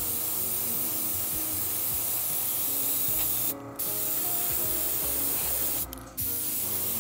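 Airbrush spraying paint with a steady hiss of air, cut off briefly twice as the trigger is let go, about three and a half seconds in and again about six seconds in.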